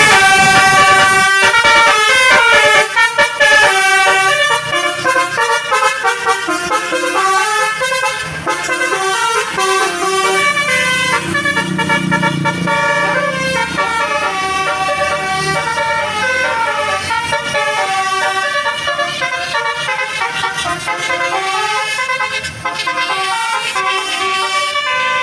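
Bus "basuri" telolet horn, a multi-tone musical horn, playing a quick melody of short notes that step up and down without a break.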